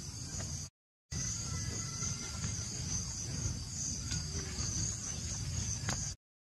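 Insects chirring steadily in a high, pulsing drone over a low rumble. The sound cuts to dead silence for a moment about a second in and again near the end.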